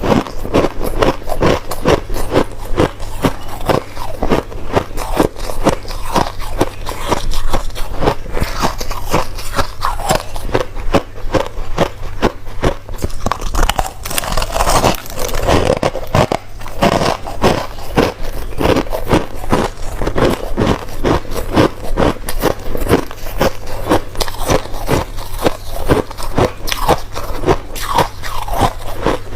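Crushed white ice being bitten and chewed close to the microphone: continuous, loud crunching, several crunches a second, with a faint low hum underneath.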